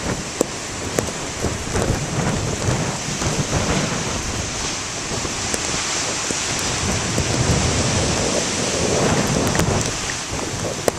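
Heavy nor'easter-driven surf breaking and rushing ashore, mixed with rain and wind blowing on the microphone. The noise stays dense and steady with scattered sharp ticks, and a wave surges louder about eight seconds in.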